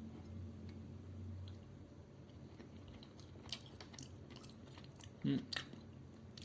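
A person chewing a mouthful of chicken curry rice, with faint clicks and wet mouth sounds starting about three seconds in.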